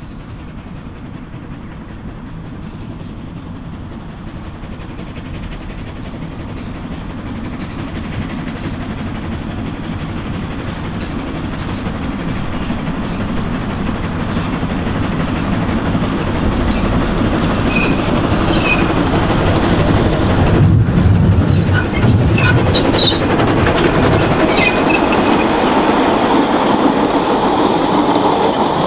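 A small narrow-gauge steam locomotive working along the line, its exhaust and wheels on the rails growing steadily louder as it comes closer. It is loudest from about two-thirds of the way in as it passes close by.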